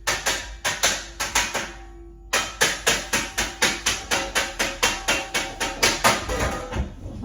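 Metal pans being banged rapidly and loudly, about four ringing strikes a second, with a brief pause about two seconds in before the banging resumes.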